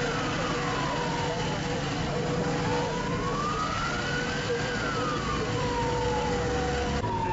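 Emergency vehicle siren wailing slowly, its pitch rising and falling about once every four to five seconds. Beneath it run a steady lower tone that stops near the end and a low engine rumble.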